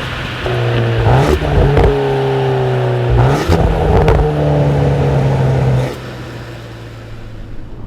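Volkswagen Golf R's turbocharged 2.0-litre four-cylinder engine and exhaust revving, its pitch falling after each rev, with sharp cracks between the revs. About six seconds in it drops back to a quieter, steady running sound.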